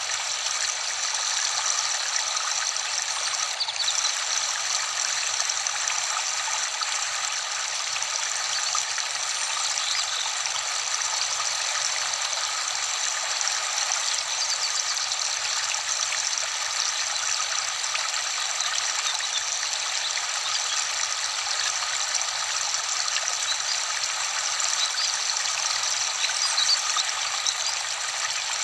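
Waterfall's falling water, a steady, even rush.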